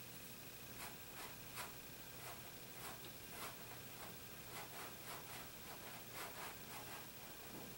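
Paintbrush dabbing and stroking acrylic paint onto canvas: a series of faint, short, irregular swishes.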